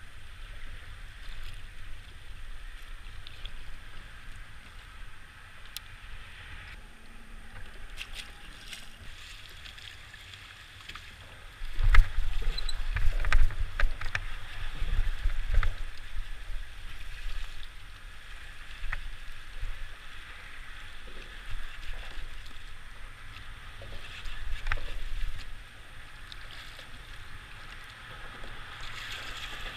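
Water lapping and sloshing against a fishing kayak's hull in open-water chop, with scattered small clicks and knocks. From about twelve seconds in until near the end, gusts of wind buffet the microphone as a loud low rumble.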